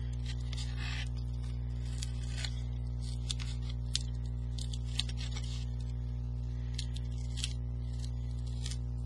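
Steady electrical mains hum, with scattered light clicks and a short rustle about a second in from a chipboard box and its tape strips being handled.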